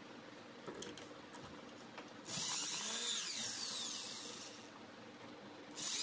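Cordless drill-driver driving a screw into a door handle's lock faceplate, its motor whine sliding in pitch. It runs for about two and a half seconds starting two seconds in, then starts again just before the end.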